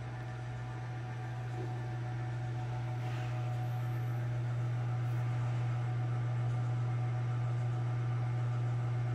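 Imextech electric drum coffee roaster running steadily during preheat, before the beans are charged: a low motor and fan hum with several steady tones above it, slowly growing louder.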